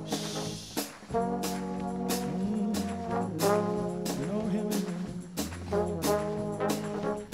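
Trombone shout band playing a gospel tune: several trombones holding chords together over low bass notes, with a steady beat of sharp hits about every two-thirds of a second.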